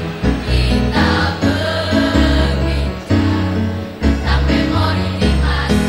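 Mixed school choir of girls' and boys' voices singing together, backed by instrumental music with a strong bass line.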